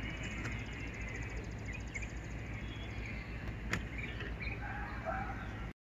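Garden ambience of birds chirping, with a fast, high trill in the first two seconds over a steady low hum. There is a single sharp click a little past the middle, and the sound cuts off shortly before the end.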